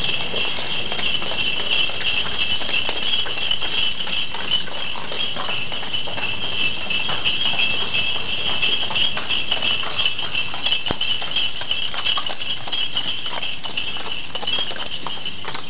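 Hooves of a cart horse clip-clopping irregularly, over a steady high-pitched drone.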